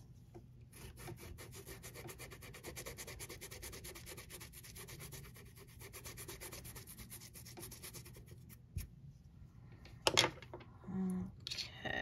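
The fluffy, polish-stained head of a nail-art tool scrubbed rapidly back and forth on a textured silicone mat, a fast, even scratchy rubbing lasting about seven seconds. Then a click and a couple of short knocks near the end.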